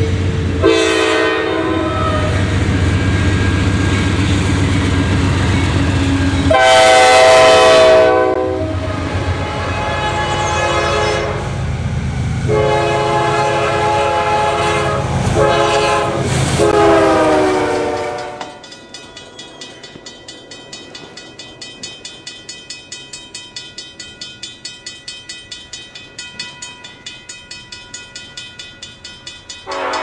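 Diesel freight locomotive air horns sounding several chord-like blasts, short and long, over the low rumble of the passing train. About two-thirds of the way through the sound cuts to a quieter, steady ringing that pulses about three times a second, and another horn blast begins at the very end.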